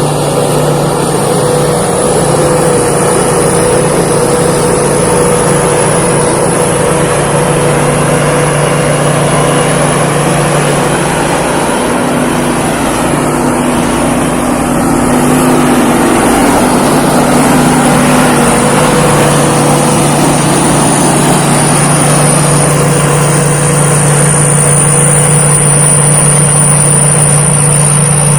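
Thai Seng Yon rice combine harvester running steadily, with a high whine above the engine note. The note eases off about twelve seconds in and comes back a little louder a few seconds later.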